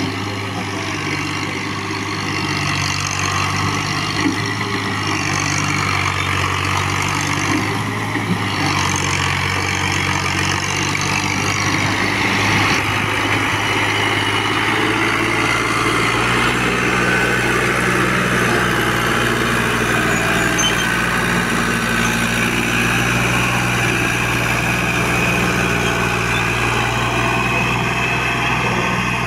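Fiat 480 tractor's diesel engine running steadily under load, pulling a heavily loaded sugarcane trolley; its engine note shifts a little about halfway through.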